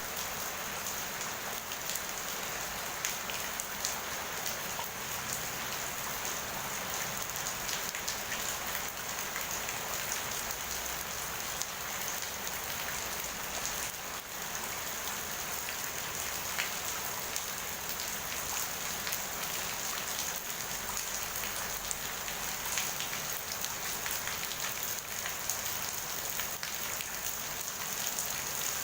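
Steady rain falling: an even hiss of rainfall with many small, separate drop ticks scattered through it.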